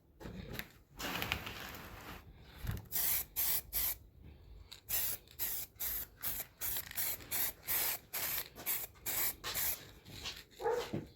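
Aerosol can of heat-resistant caliper paint spraying: one longer spray about a second in, then many short bursts, about two a second, as the coat is laid on with a moving hand.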